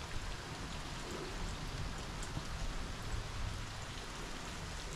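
Steady rain falling: an even hiss with faint scattered drop ticks.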